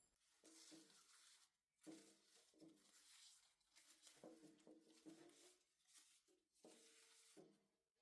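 Near silence with faint, soft, irregular patter.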